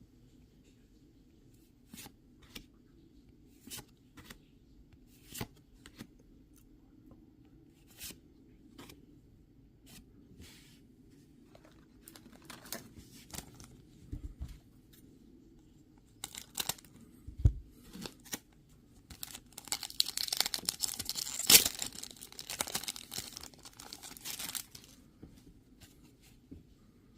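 Foil wrapper of a Pokémon booster pack being handled, crinkled and torn open. Scattered light rustles and clicks run through the first part, with a couple of low bumps. Then, about twenty seconds in, comes a dense burst of crinkling and tearing that lasts some five seconds.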